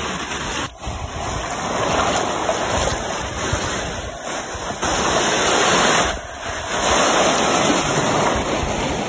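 Ocean surf washing up a sandy beach, a steady rush of breaking waves that swells and eases, with brief dips about a second in and near two-thirds of the way through.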